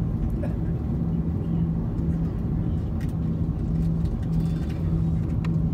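Cabin noise inside an Airbus A340-300 taxiing, with its four CFM56-5C4 engines at low power: a steady low rumble with a low hum that keeps breaking off and returning, and a few faint clicks.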